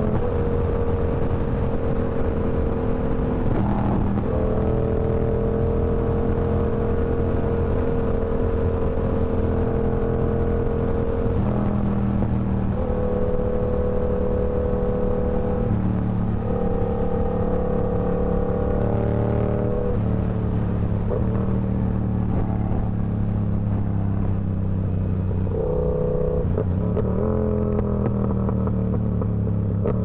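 Yamaha R7's 689 cc parallel-twin engine running through a TOCE full-system exhaust while riding, the note holding steady at even revs for several seconds at a time and stepping to a new pitch about half a dozen times as the rider changes speed, with a short drop and climb in revs near the end.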